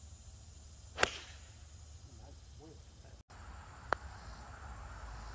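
A driver strikes a golf ball off the tee with a sharp crack about a second in. Just under three seconds later a putter taps a ball with a lighter, ringing click.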